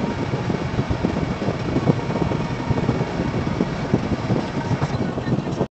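Steady road and engine noise of a moving vehicle, picked up by a dashcam, with many small knocks and rattles; it cuts off suddenly near the end.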